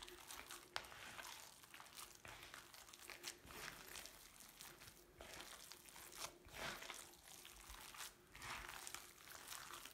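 Faint, irregular sounds of bare hands kneading and squeezing a soft meatloaf mixture of minced meat, soaked bread, and cheese in a bowl.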